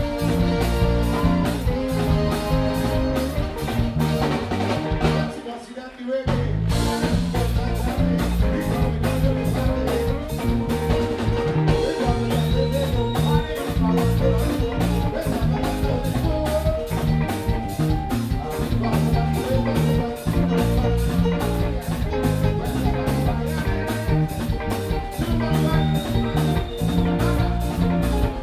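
Live band playing a soca tune on electric guitars, bass guitar and drum kit. The band drops out for about a second some five seconds in, then comes back in.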